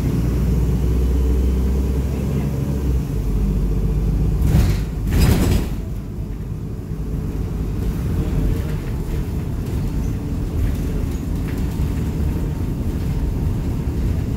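Mercedes-Benz O500U city bus with Voith automatic transmission running on the road, heard from inside the cabin as a steady low drone; the deepest tone drops off about three seconds in. Two short rushes of noise come about four and five seconds in.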